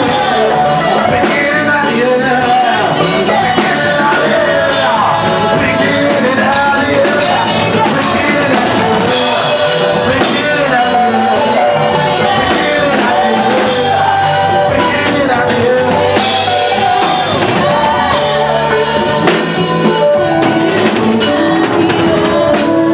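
Live gospel worship music: a band with drum kit playing on, with voices singing over it.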